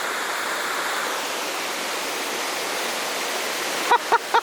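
Waterfall's water rushing steadily in a dense, even roar. Near the end a person gives a few short calls.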